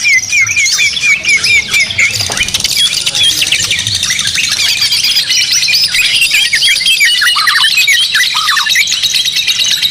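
Many caged songbirds, white-rumped shamas (murai batu) among them, singing at once in a dense, overlapping chorus of whistles and chirps. The first two seconds carry a fast run of repeated notes before the mix thickens.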